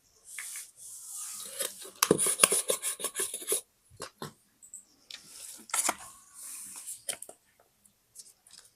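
Paper scrapbooking materials handled at close range: rustling and rubbing in short bouts, with a quick run of crisp clicks and crinkles about two seconds in, and a few more single clicks later.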